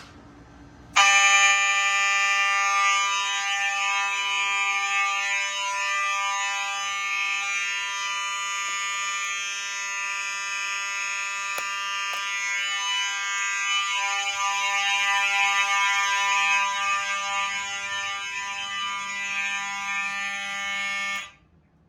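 A home fire alarm test system's horns sounding together: a steady, buzzing alarm tone rich in overtones. It starts about a second in, runs on, and cuts off suddenly near the end when the system is silenced.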